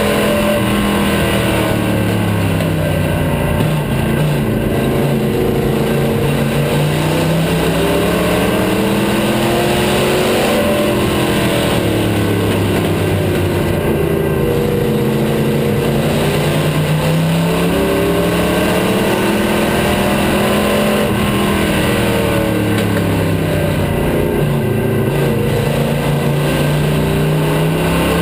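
Vintage stock car's engine heard from inside the cockpit at racing speed. Its pitch rises and falls in waves about every ten seconds, climbing on the straights and dropping for the turns, over constant wind and road noise.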